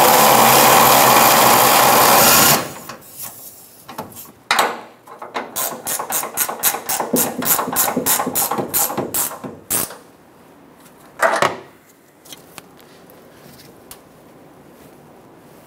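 Power ratchet spinning a locking nut down onto a fuel-tank strap stud for a couple of seconds, then cutting off suddenly. A ratcheting wrench follows on the same nut, clicking quickly and evenly for about five seconds as it is snugged up, with one more short clunk of the tool a little later.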